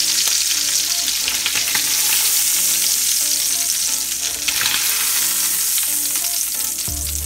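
Chicken breasts sizzling hard in hot clarified butter in a stainless steel sauté pan, a steady crackling fry, with metal tongs clicking against the pan as the pieces are lifted out.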